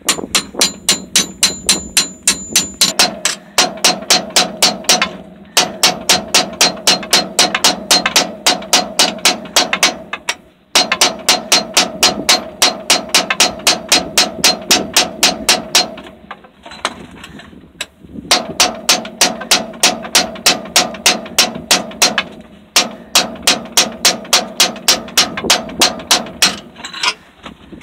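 Hammer striking a steel punch to drive a pin into a tractor's gear shift lever linkage: quick, even runs of metal-on-metal blows, about four a second, each with a short metallic ring, broken by brief pauses.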